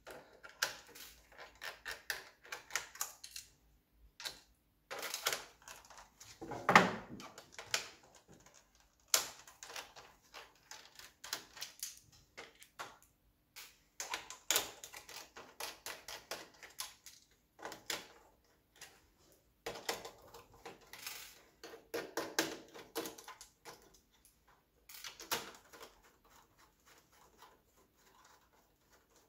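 A small screwdriver and loose screws clicking and scraping on a laptop's plastic bottom case as the screws are taken out: irregular light clicks and taps, with a louder knock about seven seconds in.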